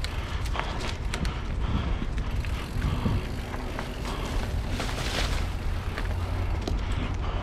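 Nukeproof Scout 290 hardtail mountain bike rolling down a dirt singletrack. Tyres run over dirt and leaves, and the chain and frame rattle with many short clicks over the bumps. A steady low rumble of wind and trail vibration sits on the microphone underneath.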